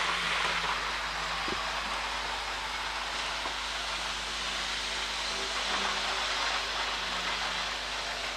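Electric model train running along the track: a steady rolling hiss with a faint motor hum that comes and goes.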